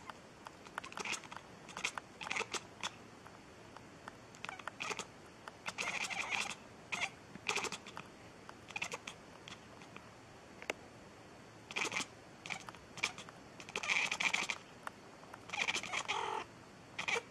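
White domestic cat giving many short mews and chirps in irregular runs, with a pause of a few seconds in the middle.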